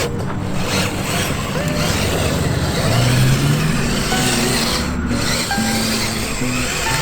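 Background music, with short held notes changing pitch every half second or so over a steady rough noise.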